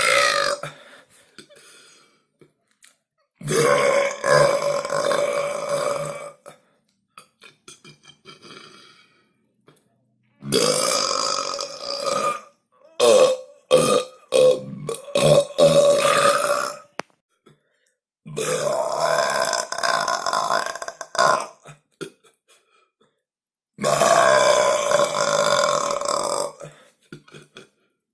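A series of about five long, loud burps, each drawn out for two to three seconds at a fairly steady pitch, with silent gaps between them.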